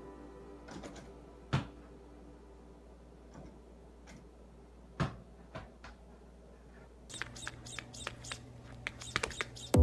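A few isolated light knocks in a quiet small room: one about a second and a half in and another halfway through. A quick flurry of small clicks and taps follows over the last few seconds, over a faint low hum.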